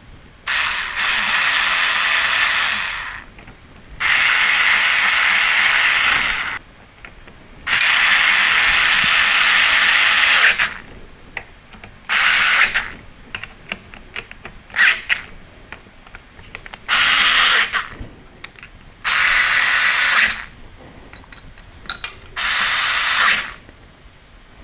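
Red SKIL cordless electric screwdriver whirring in seven separate runs while driving screws into the aluminium frame: three long runs of two to three seconds each, then four shorter ones, with light clicks of handling between them.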